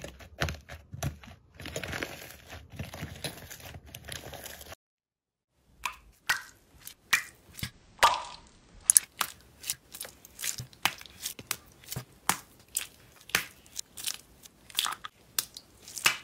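Hands pressing into slime with a hardened, cracked crust, crackling and crunching. After a short break, hands squeeze small zip bags of clear purple slime, giving sharp crinkling pops about twice a second.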